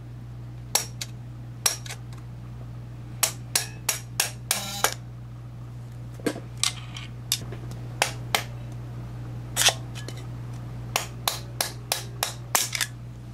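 Hammer gently tapping a screwdriver that pushes a coil spring down over the cast-in ridges of a Borg-Warner T90 transmission's cast-iron shift cover. About two dozen sharp metallic taps come at irregular spacing, some in quick runs, over a steady low hum.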